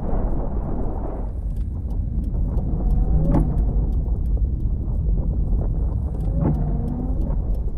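Deep, continuous rumble with scattered rattling and clicking, typical of ground shaking during an earthquake. Two short pitched sounds come in, about three and six and a half seconds in.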